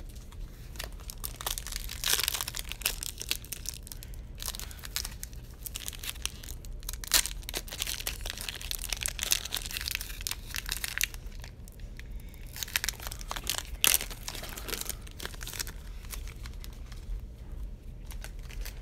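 Trading-card pack wrappers crinkling and tearing as packs are opened and handled, an irregular crackling rustle with a few sharper snaps.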